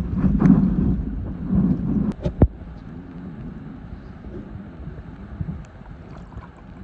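Muffled sloshing and rumbling of seawater heard through a submerged camera, with surges in the first two seconds and a couple of sharp knocks a little over two seconds in, then a quieter steady rumble.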